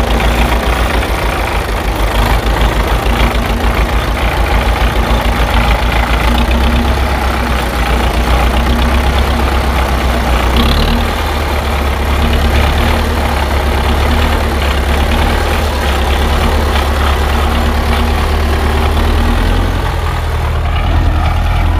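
Tractor engine idling sound: a steady low diesel rumble that throbs quickly for the first few seconds, then runs on evenly.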